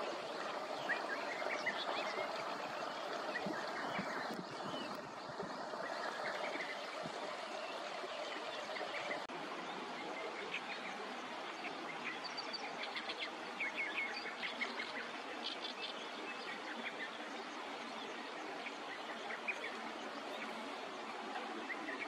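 Steady rush of running water from a rain-swollen stream, with short bird chirps scattered over it, more of them in the second half.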